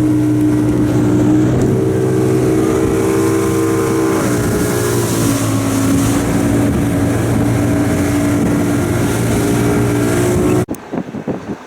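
Motorboat engine running under way, a steady pitched drone whose pitch steps up about a second and a half in and drops slightly after four seconds. It cuts off abruptly near the end.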